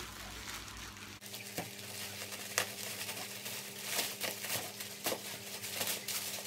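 Plastic parcel wrapping crinkling and rustling as it is cut open with scissors, with irregular sharp crackles and snips.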